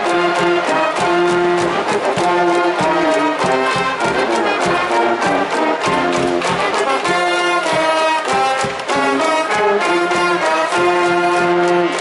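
Cheering brass band in a baseball stadium's stands playing a fight song: trumpets and trombones in short repeated phrases over a steady beat, the cheering music of Japanese high-school baseball.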